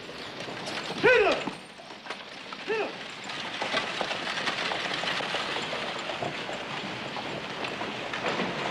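A horse-drawn stagecoach setting off: a man shouts twice at the team, then the hooves and the coach's wheels clatter and rattle steadily.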